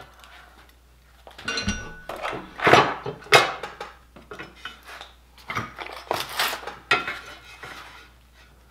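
Metal parts clattering and knocking against each other and a wooden tabletop as an E-Stopp electric parking-brake controller is laid onto a steel transmission brace and lined up. Sharp clanks come in two bunches, one from about a second and a half to three and a half seconds in, another around six to seven seconds, with a short metallic ring in the first.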